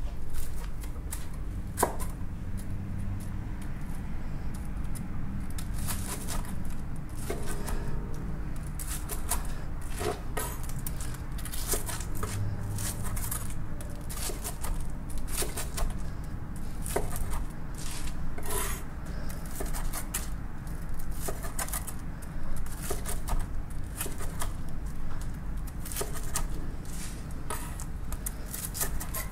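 Chef's knife cutting tempura-fried sushi rolls into pieces on a wooden cutting board: many irregular taps and clicks of the blade meeting the board, over a steady low hum.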